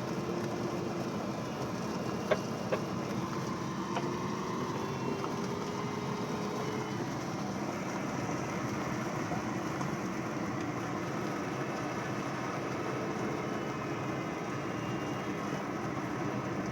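Steady rushing noise inside an aircraft cockpit in flight, with a few sharp clicks about two to four seconds in and a faint tone slowly rising in pitch over the first several seconds.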